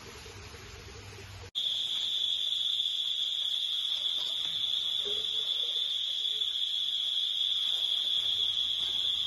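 Insect chorus: a steady, high-pitched buzz that starts abruptly about a second and a half in.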